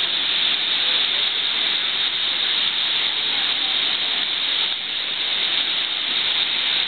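Whitewater river rapids rushing steadily below, a constant hiss with no breaks.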